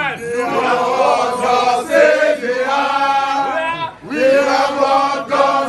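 A group of voices chanting together in long, wavering phrases, with brief breaks about two and four seconds in.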